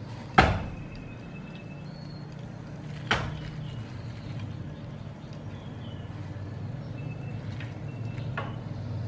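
Two sharp knocks about three seconds apart, the first the louder, over a low steady hum, with faint bird chirps now and then.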